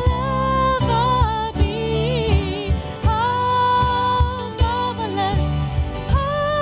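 A worship song: a solo voice singing long held notes with vibrato over a band with a steady drum beat.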